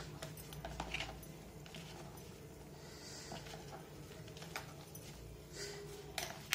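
A hand crushing and mixing crumbled bread with malai in a plastic tub: faint squishing and rustling, with scattered light clicks and taps against the container.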